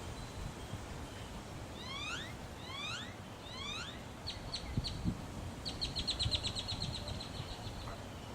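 Northern mockingbird singing: a rising whistled note given three times, then three short sharp notes and a fast trill of about eight notes a second.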